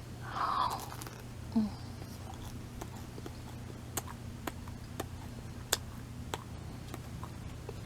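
Mouth chewing a crusty sesame-crusted simit bagel close to the microphone, with scattered crisp crunching clicks a second or so apart over a steady low hum.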